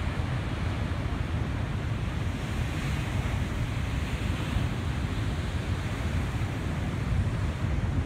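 Heavy surf breaking over rocks and surging up a sandy beach: a steady rush of water that swells in hiss about three to five seconds in. Wind rumbles on the microphone underneath.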